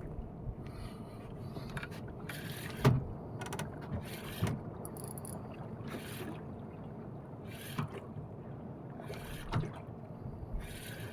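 Small boat on the water: a steady low wash with occasional knocks against the hull, the loudest about three seconds in.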